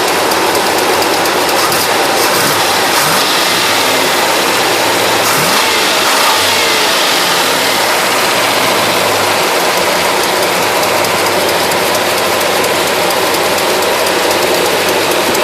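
Ford 4x4's engine running steadily under a loud, even rush of noise.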